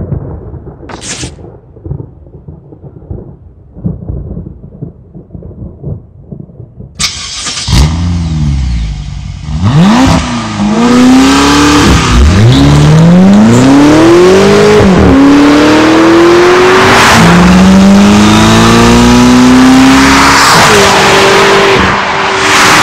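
BMW X6 M's 4.4-litre twin-turbo V8, heard through an Akrapovič Evolution exhaust, accelerating hard after a low irregular rumble. The engine note climbs and falls back at each upshift several times, then rises steadily in a higher gear.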